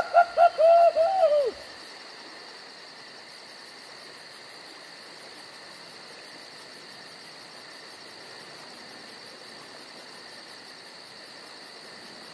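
A wavering animal call of several quick arching notes, over in the first second and a half. After it comes a steady chorus of insects chirping in a fast, even, high-pitched pulse.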